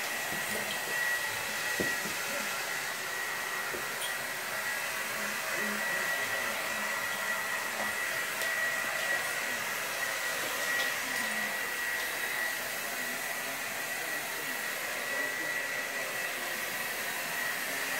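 Steady rushing noise, like a fan or blower running, with a faint high steady whine.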